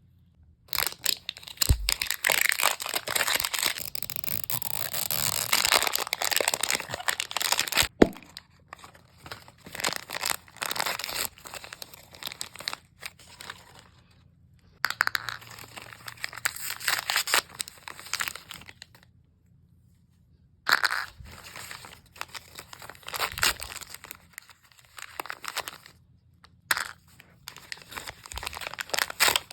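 Plastic packaging of a Mini Brands blind capsule being torn open and crinkled by hand, in irregular bouts with short pauses and a few sharp clicks.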